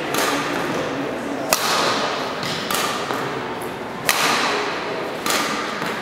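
Badminton racket striking a shuttlecock in a training rally: two sharp cracks of overhead backhand hits, about a second and a half and four seconds in, with softer return hits from the far end in between. Each hit echoes through the sports hall.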